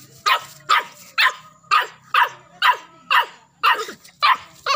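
A young hunting dog in training barking repeatedly at quarry, about ten sharp barks at roughly two a second.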